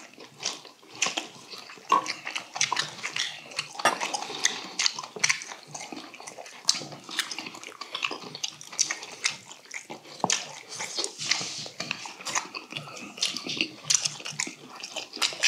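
Close-miked eating: chewing and lip-smacking with many short, sharp clicks scattered throughout, some from chopsticks and spoons tapping stainless steel bowls.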